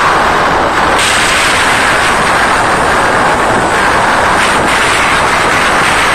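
Concert crowd of fans screaming continuously, so loud that it distorts the phone's microphone into a harsh, steady wall of noise.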